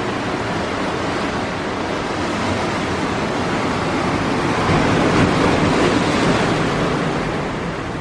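Ocean surf breaking and washing on the beach, a steady rush of water that grows louder about halfway through and eases off near the end.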